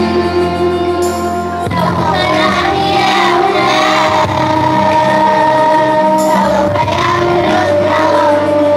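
Children's choir of primary-school girls singing together to an electronic keyboard accompaniment.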